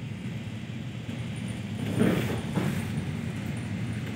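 ED4M electric multiple unit running along the track, heard from inside the carriage: a steady low rumble of wheels on rails, with a louder knock about two seconds in and a smaller one just after.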